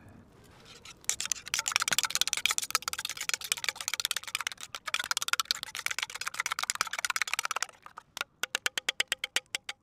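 Hot oil sizzling and spitting in a wok over a campfire: a dense crackle that starts about a second in and cuts off abruptly near the end, giving way to a run of separate sharp pops.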